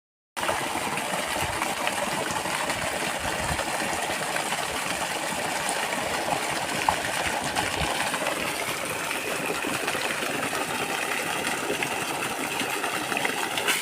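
Mud pump running and pushing sewage water out in a steady rushing gush.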